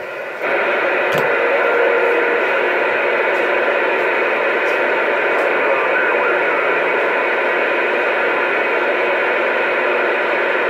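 CB radio receiver on channel 28 (27.285 MHz, AM) putting out steady static hiss through its speaker. The hiss comes in abruptly about half a second in and holds evenly, with a faint tone in the first two seconds.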